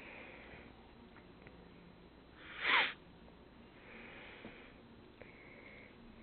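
Cat grooming a kitten close up: soft, breathy sniffing and licking noises in short patches, and one loud brief noisy burst falling in pitch about two and a half seconds in.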